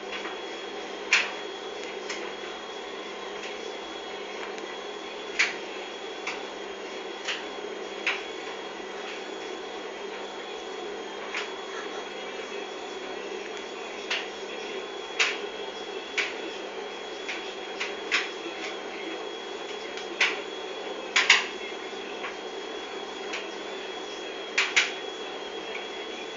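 Sharp, irregular clicks and taps, a few every few seconds, over a steady hum: a cat's claws skittering on a tiled floor as it darts after a laser dot.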